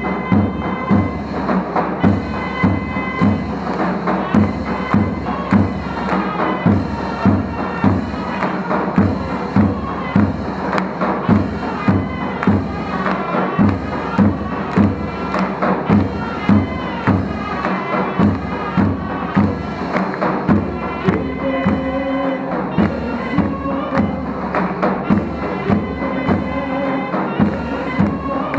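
Ottoman mehter band playing: zurnas (double-reed shawms) carry a melody in sustained reedy tones over a steady, even davul drumbeat.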